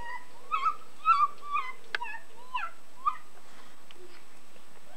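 A German Shepherd-type dog whining in a series of short, high, wavering whimpers, with a single sharp click about two seconds in.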